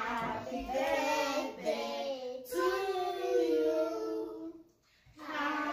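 Children singing together in long held notes, with a short pause about five seconds in.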